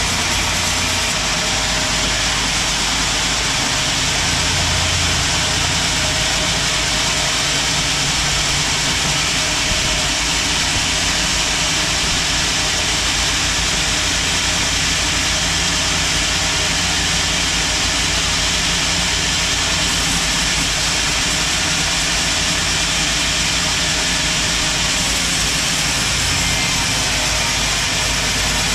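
Sawmill machinery running steadily: a loud, constant, even noise over a low hum, with no pauses or changes.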